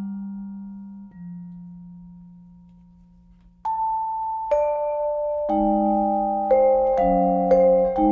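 Solo vibraphone played with four yarn mallets. A low note rings and slowly fades for about three seconds, then new notes and chords are struck every half second to a second, each ringing on into the next.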